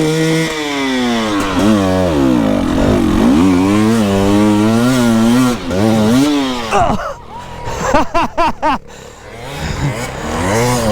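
Dirt bike engine revving hard in deep mud, its pitch rising and falling over and over for about six seconds. It then drops back, comes in with short blips of throttle, and climbs again near the end.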